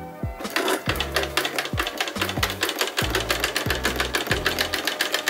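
Electric home sewing machine stitching a seam through curtain fabric: a rapid, steady clatter of the needle that starts about half a second in. Background music with a deep bass line plays underneath.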